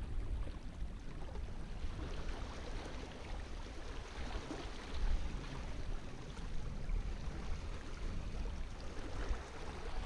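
Wind buffeting the microphone over small waves lapping against a rocky lake shore, a steady rushing with a low rumble.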